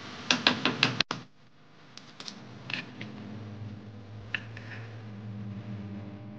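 A metal spoon clicks sharply against a pan five times in quick succession while stirring herbs that sizzle with a steady hiss. After an abrupt cut, eggs are tapped and cracked into a steel bowl: a few light clicks of shell.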